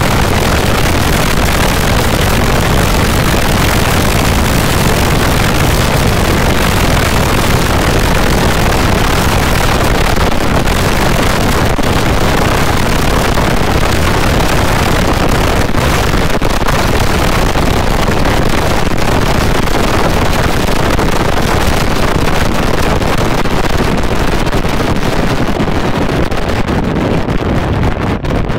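Steady, loud wind noise on a bike-mounted microphone mixed with the running engine of a Kawasaki ZX-6RR inline-four sportbike at road speed. The high hiss thins out near the end.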